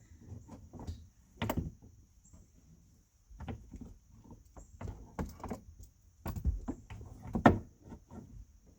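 Irregular knocks, thumps and rattles of things being handled and shifted inside a van, with the loudest bangs about a second and a half in and near the end.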